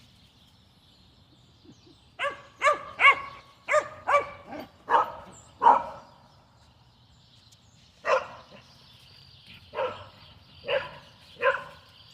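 A dog barking: a quick run of about eight barks, a pause of a couple of seconds, then four more single barks about a second apart.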